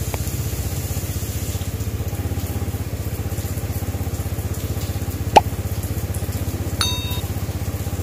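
A small engine idling with a steady, rapid, even pulsing low hum. There is a short sharp chirp about five seconds in and a brief high beep near the end.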